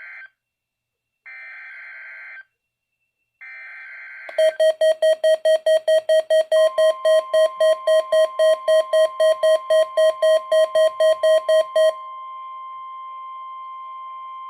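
NOAA Weather Radio Required Weekly Test: short bursts of the SAME digital header, a harsh data warble, repeated with about a second of silence between them. Then a loud, rapid electronic beeping starts, about three beeps a second, and a couple of seconds later the steady 1050 Hz warning alarm tone comes in and holds on after the beeping stops.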